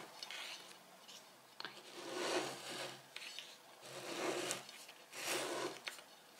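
A ceramic plate being turned by hand on a wooden tabletop, scraping softly across the wood in three short passes.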